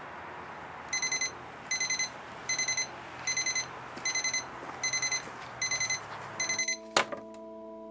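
Electronic alarm clock beeping in repeated bursts of four quick, high beeps, about eight bursts in all, stopping about six and a half seconds in, followed by a sharp click.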